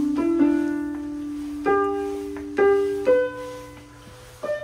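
A musical staircase playing electronic piano notes as the steps are trodden on: about six single notes of different pitches at an uneven pace, each struck and left to ring and fade.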